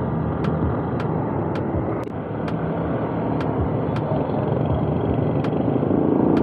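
Honda ADV150 scooter's single-cylinder engine running at low road speed, with road and wind noise over it. A faint tick comes through about twice a second.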